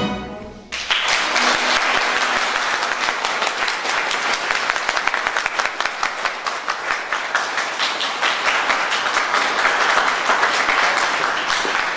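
The last chord of a garmon ensemble (Azerbaijani button accordions) dies away, and under a second in an audience starts applauding, steady dense clapping that carries on to the end.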